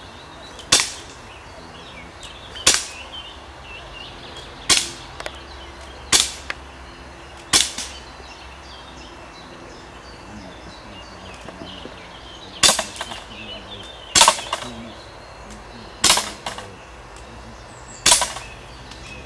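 Nine sharp rifle shots from a scoped rifle in a timed shooting run. Five come about every one and a half to two seconds, then after a pause of about five seconds four more follow at the same pace. Several shots are followed a split second later by a fainter click.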